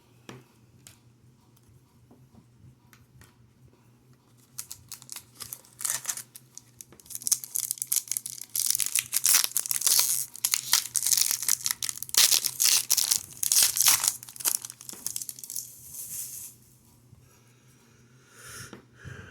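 A hockey card pack wrapper being torn open and crinkled by hand: a few scattered clicks and rustles starting about four seconds in, then several seconds of dense tearing and crinkling that stops a few seconds before the end.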